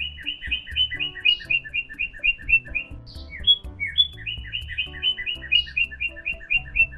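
A parrot chirping in quick, evenly spaced chirps, about four a second, in two runs of about three seconds each, over soft background music.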